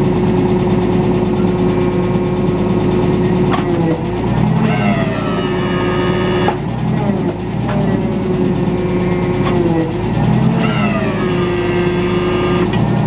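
Nissan forklift's engine running, with the hydraulic pump whining as the roll clamp rotates. The pitch shifts several times, with brief rising glides as the hydraulic levers are worked.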